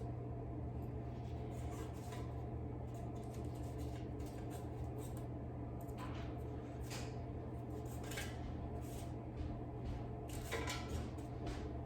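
Light clicks and taps against a metal air fryer basket as spanakopita pastries are turned over one by one, with a steady low hum underneath.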